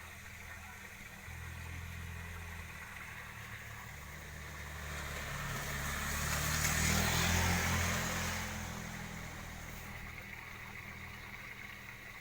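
A vehicle passing by: its sound swells gradually to a peak about seven seconds in, then fades, over a steady low hum.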